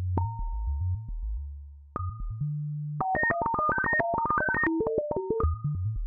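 Meng Qi Wing Pinger synthesizer, which makes its notes from pinged resonant filters rather than oscillators, playing held pitched tones over low bass notes. About three seconds in, a fast arpeggio of rapidly stepping notes runs for about two seconds, then settles back onto a held tone.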